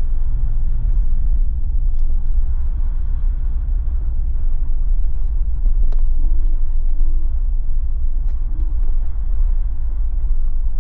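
Jeep driving along at low speed: a steady low rumble of engine and road noise. Three short, faint squeaks come just past the middle.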